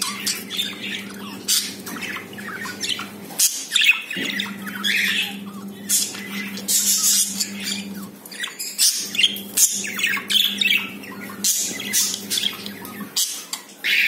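Budgerigars chattering: a steady run of quick chirps and short sharp squawks. Behind them is a low steady hum that cuts out briefly a few times.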